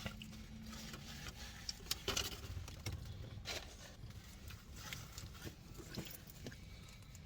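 Faint eating sounds: chewing, with scattered soft clicks and rustles of food and packaging being handled at irregular intervals.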